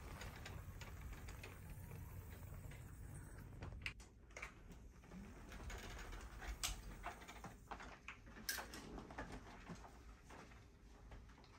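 Faint low hum of a Solax folding mobility scooter's electric drive for the first few seconds, then a few sharp clicks and knocks as the scooter is stopped and handled.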